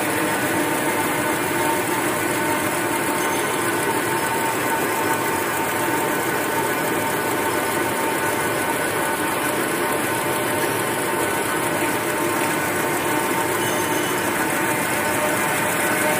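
XY-GU-20A two-line automatic V-fold facial tissue paper machine running steadily, its rollers and folding mechanism making a constant dense mechanical noise with a faint steady tone through it.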